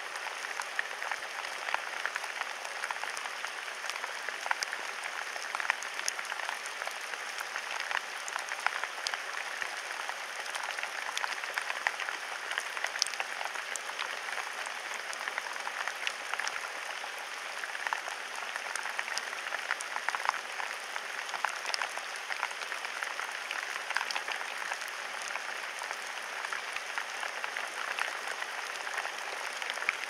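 Steady rain falling on a flowerbed: a dense, even crackle of many small drops striking leaves and petals.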